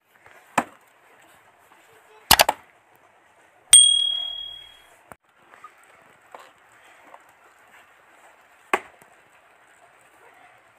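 Axe chopping firewood: separate sharp chops, a quick run of two or three together, and one strike with a clear metallic ring that fades over about a second.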